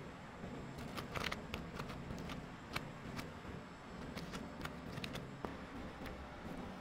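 Scattered light clicks and taps of a metal spatula against a spread tub and waffle while spreading Nutella, over a low steady background hum.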